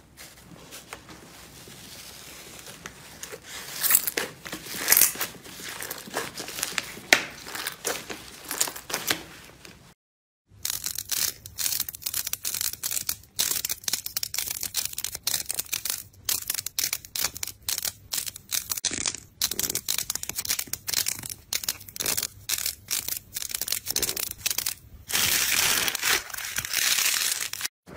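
Fingers pressing and squishing slime. First a bubbly foam slime crackles and pops under the fingertips. After a brief silence about ten seconds in, thick clay slime is pressed over large beads and squeezed by hand, with rapid crackling clicks and a run of continuous crinkling near the end.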